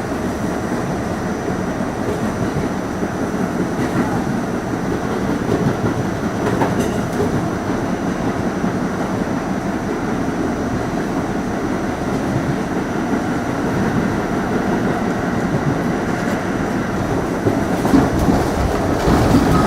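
R68 subway car running between stations, heard from on board: a steady rumble of wheels and motors with occasional clicks over the rails. It grows louder near the end, where a thin wheel squeal sets in.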